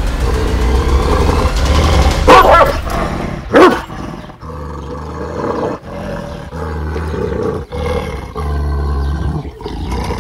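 Anatolian shepherd dog (Malaklı) growling deep and low in long rumbles, one breath after another, a warning at a stranger coming close. Two loud barks break in about two and three and a half seconds in.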